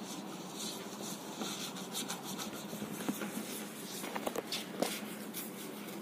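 Silicone pastry brush greasing the inside of a bowl: soft, repeated brushing and scraping strokes against the bowl's wall, with a few light clicks in the middle.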